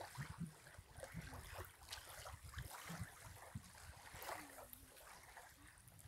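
Faint lakeshore ambience: light wind gusting on the phone's microphone and small waves lapping at the sandy edge of the lake.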